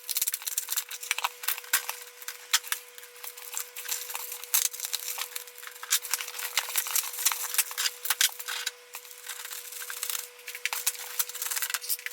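A cardboard box and its packaging being opened by hand: continuous rustling, scraping and crinkling with many sharp little clicks, over a faint steady hum.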